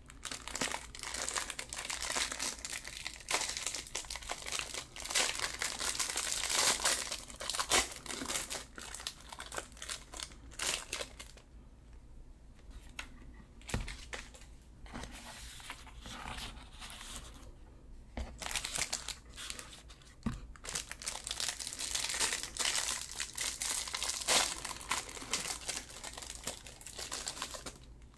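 Plastic snack-cake wrappers crinkling and tearing as they are opened and handled by hand, dense and crackly with a couple of brief pauses midway.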